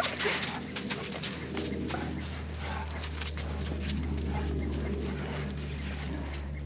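English Mastiffs whining excitedly for food: one short rising whine right at the start, then fainter whimpers, over a steady low hum.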